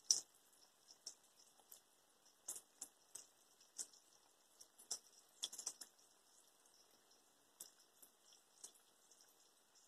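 Faint, scattered pops and crackles of flour-coated bacon frying in hot oil in a large pan, coming irregularly about once or twice a second.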